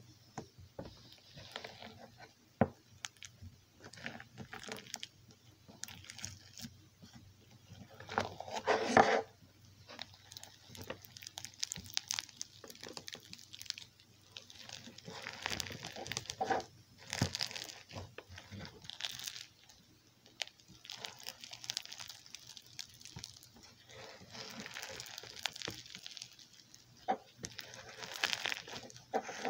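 Crunchy bingsu slime, clear slime packed with small plastic beads, crackling and crunching as it is squeezed and kneaded by hand. It comes in uneven bursts, the loudest about nine seconds in.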